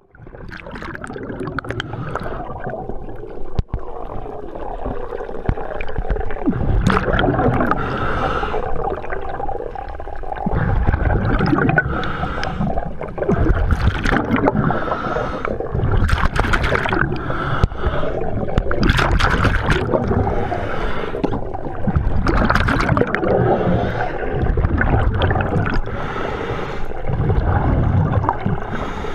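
Underwater sound picked up through a camera housing: a scuba diver's regulator breathing, with loud bubbling bursts of exhaled air every two to three seconds over a steady low rumble of water.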